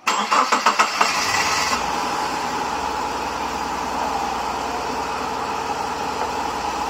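Rebuilt Subaru EJ25D 2.5-litre flat-four cranking on the starter for about a second, catching, then idling steadily on its first fuelled start after the rebuild. It runs rough, as if on only two cylinders.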